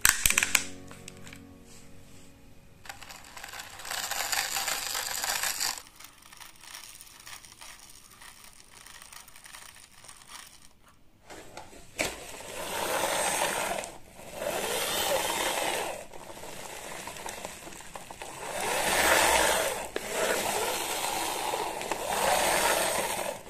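Plastic toy vehicles being worked and rolled on artificial turf. There are clicks of the toy excavator's arm near the start, then repeated whirring swells of the toy's wheels and gears as a toy police motorbike is pushed back and forth, each push lasting a second or two.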